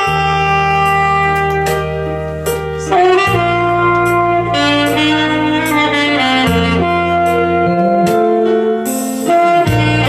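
Alto saxophone playing a slow melody of long held notes over an accompaniment with a bass line and cymbal ticks.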